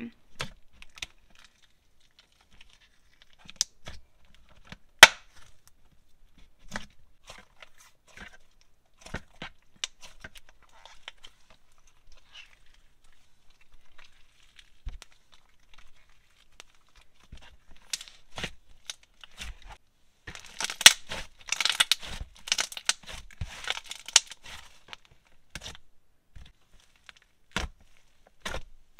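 Thick clay slime with a glue-all base being pressed, stretched and folded by hand, giving scattered small bubble pops and clicks. About twenty seconds in comes a denser run of crackling pops.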